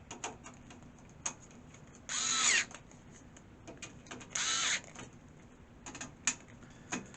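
A cordless power screwdriver runs in two short bursts, driving in the screws that fasten a PC power supply into the case. Small clicks and knocks of handling come between the bursts.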